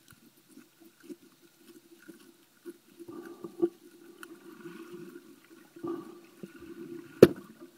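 Muffled underwater water noise heard through a camera's waterproof housing: an uneven low bubbling and sloshing with faint clicks, and one sharp knock about seven seconds in.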